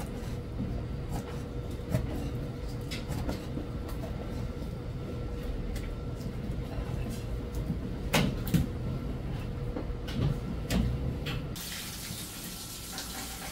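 A kitchen knife cutting a raw fish fillet into blocks on a cutting board, with scattered knocks of the blade on the board over a steady kitchen hum. Near the end, water from a tap starts to run steadily.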